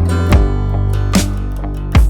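Background music: acoustic guitar strumming over a steady beat.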